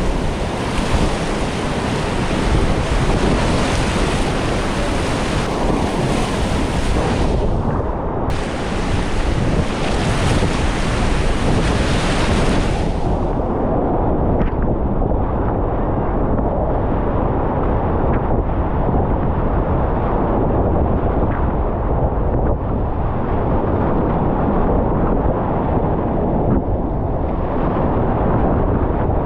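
Whitewater rapids rushing around a kayak, a loud steady churn of water with wind and water noise on the microphone. A little under halfway through the sound turns duller, losing its hiss.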